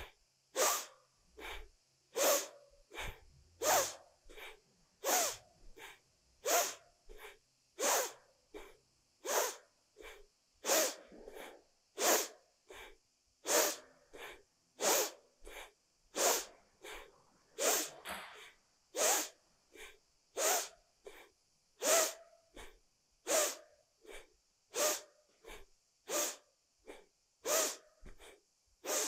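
A woman's forceful, rhythmic yoga breathing: sharp inhales and exhales alternate about every 0.7 s, one stroke stronger than the other, keeping a steady pace throughout.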